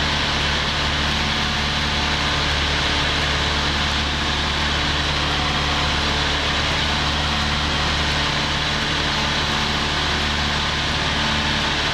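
A Cessna 172P's four-cylinder Lycoming engine and two-blade propeller droning steadily in flight, heard inside the cabin together with air rushing over the airframe. The engine note holds an even pitch throughout.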